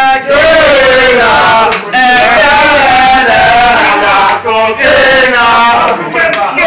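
Men's voices chanting loudly, a sung chant of long held phrases broken by a few brief pauses.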